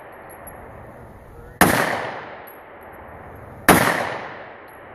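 Two pistol shots from a Para USA Warthog, a compact 1911-style .45 ACP handgun, about two seconds apart. Each crack is followed by an echo that rolls away over about a second.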